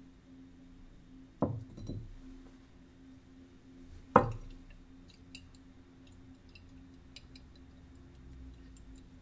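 Glass titration flask knocking and clinking as it is swirled under a burette. There are two sharp knocks: one about a second and a half in, followed by a couple of lighter ones, and a louder one a little past four seconds. Faint light ticks follow.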